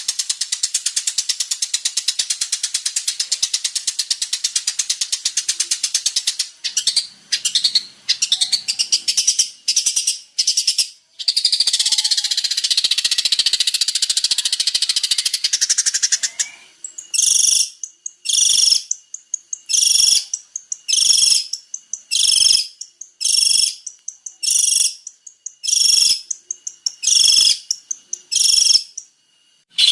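Long-tailed shrike (cendet) in full song: a fast, continuous high chattering for the first half, breaking into short phrases, then about a dozen short calls repeated roughly once a second to the end.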